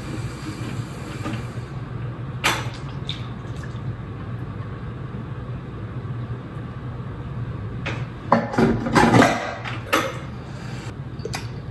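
Tomato sauce being poured from a small can into a pressure cooker's metal inner pot. There is a sharp clink about two and a half seconds in and a louder spell of pouring and handling noise around eight to nine seconds in, over a steady low hum.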